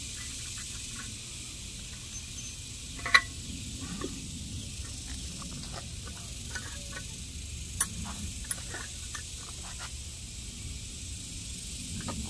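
Handling metal parts at a bench vise: a few sharp clicks and taps, the loudest about three seconds in and another near eight seconds, with lighter ticks between, as threaded rod and a cast iron anchor half are worked by hand, over a steady background hiss.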